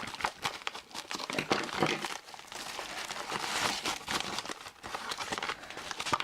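Packaging being crinkled and rustled by hand as a parcel is unpacked, with many small crackles and a denser stretch of rustling about halfway through.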